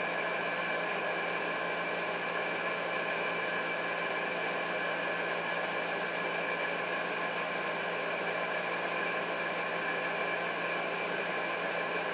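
Steady mechanical hum of a running appliance, with several fixed tones in it.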